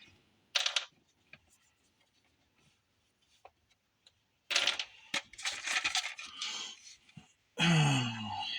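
Small plastic modular phone connectors and parts clattering and rustling as they are handled and set down on a bench: a short clatter, a quiet pause, then a couple of seconds of irregular clicks and rustling.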